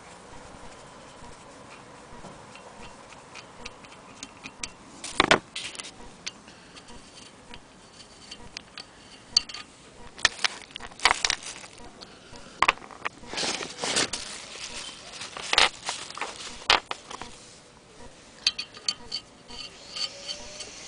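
Irregular metallic clicks, taps and knocks of a screwdriver and fingers working on the cast-iron handwheel of a Willcox & Gibbs hand-crank sewing machine, fitting its crank handle. The knocks are scattered, with the loudest clusters in the middle.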